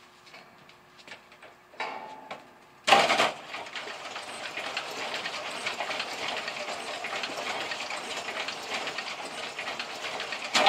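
Improvised direct-drive go-kart electric starter cranking a homemade twelve-cylinder engine built from Briggs & Stratton engines: a fast steady clatter that starts suddenly about three seconds in and cuts off near the end, the engine not catching. The starter is not turning the twelve cylinders over fast enough to start.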